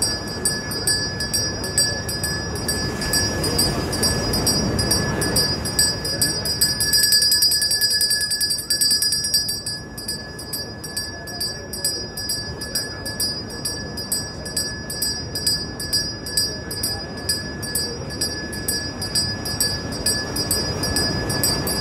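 A steady rhythmic beat of sharp metallic strikes over held high ringing tones, like festival bells and cymbals, with a swell of low rumbling noise in the first few seconds.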